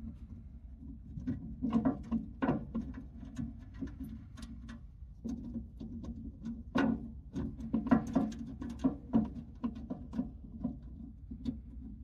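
Irregular clicks and light knocks of a safe's keypad housing being handled and worked loose, its side screws slackened, over a steady low hum.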